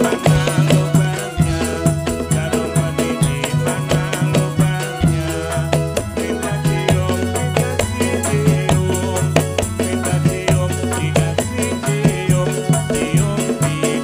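Traditional Javanese Ndolalak dance music: a steady, repeating low drumbeat with quick jingling percussion strokes over it.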